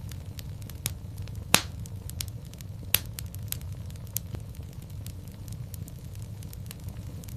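Wood fire in a fireplace crackling: many small snaps over a steady low rumble, with two loud pops, about one and a half and three seconds in.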